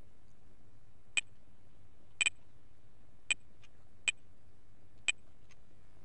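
Computer keyboard keys pressed one at a time, giving five sharp clicks about a second apart, the second a quick double, with a couple of fainter ticks between them.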